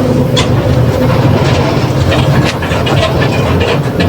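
Mercedes-Benz OF 1721 diesel city bus under way, heard from inside: a steady low engine and drivetrain drone with a faint steady hum above it and scattered body rattles. The hum is the growling differential.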